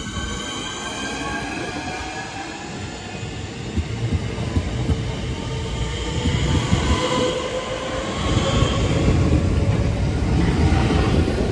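Electric train moving along the platform: a motor whine sliding gently down in pitch, a few sharp clicks, then a low wheel-and-rail rumble that grows louder toward the end.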